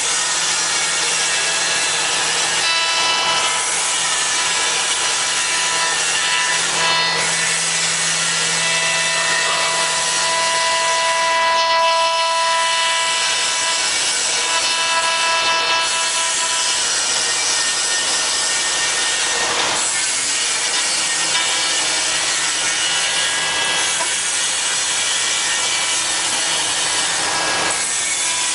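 Spindle of a 5-axis CNC router running with its bit cutting into wood: a steady cutting noise with a high whine. Several whine tones fade in and out as the tool moves, loudest around the middle.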